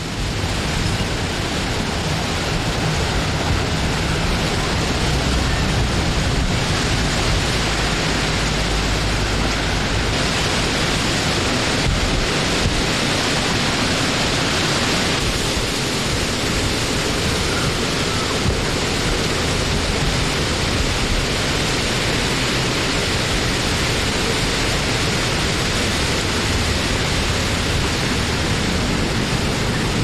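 Wind blowing steadily: an even, full rushing noise with a low rumble beneath, swelling slightly around the middle.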